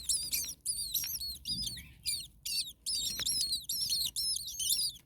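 Starling nestlings calling in the nest: a chorus of high, wavering, overlapping calls, several a second, with brief gaps between bouts.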